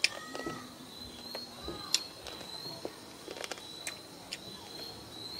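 Close mouth sounds of children eating: chewing and lip smacks with a few sharp clicks, over a steady high-pitched insect trill.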